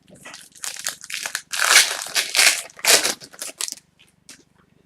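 A trading-card pack wrapper being torn open and crumpled: a run of crackling, rustling tearing that thins out near the end.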